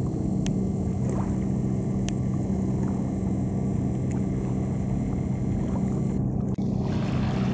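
Low, steady drone of a ferry's engine heard across the lake water.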